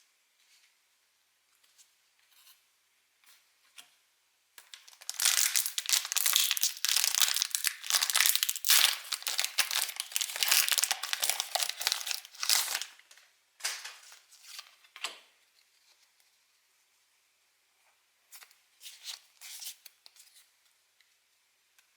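A Pokémon booster pack's foil wrapper being torn open and crinkled: faint taps at first, then about eight seconds of dense tearing and crinkling, followed by a few shorter rustles.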